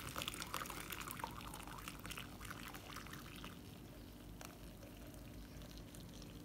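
Tamarind sherbet poured from a pot through a mesh strainer into a bowl: a faint, steady splashing stream that grows softer after about three and a half seconds.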